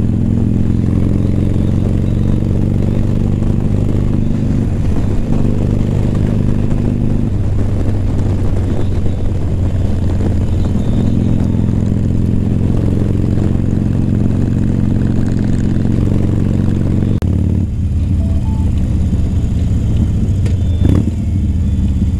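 Motorcycle engine running steadily at highway cruising speed; about seventeen seconds in the engine note drops and changes.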